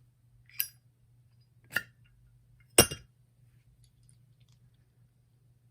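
Vietnam-era Zippo lighter being opened and its insert pulled from the case: three sharp metallic clicks about a second apart, the third the loudest.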